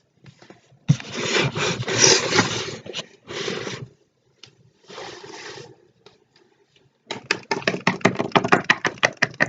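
Small plastic toys being handled and set down on a hard surface: scraping and rubbing in several stretches, then a run of quick taps near the end.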